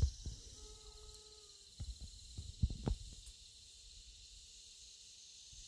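Steady background chorus of insects, with a few soft knocks about two to three seconds in.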